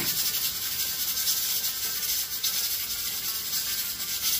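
Hot cooking oil sizzling in a frying pan, a steady crackling hiss.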